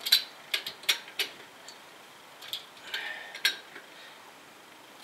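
Socket wrench clicking and clinking against the wheel nuts of a wheel spacer on a hub. There are several sharp, irregular metal clicks in the first second, a few more scattered through the middle, and a small cluster about three seconds in.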